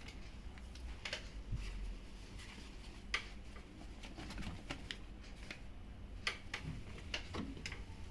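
Samsung WW80R421HFX/LE washing machine running: a steady low hum with irregular light clicks and knocks.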